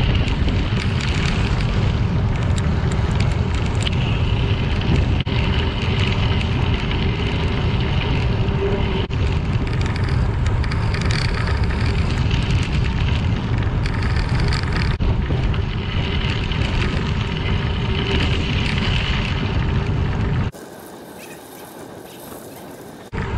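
Wind buffeting the microphone during a bicycle ride, a steady low rumble with hiss above, mixed with the tyres rolling over a crushed-limestone trail. About twenty seconds in the rumble cuts off suddenly, leaving a much quieter hiss for a few seconds before it returns.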